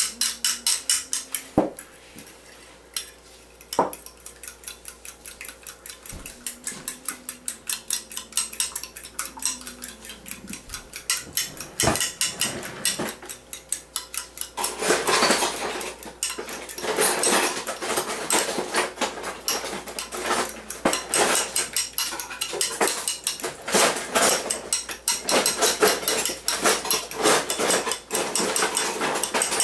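Fork beating egg white in a china teacup: rapid, steady clinking of the tines against the cup. It is lighter at first and gets louder and busier about halfway through.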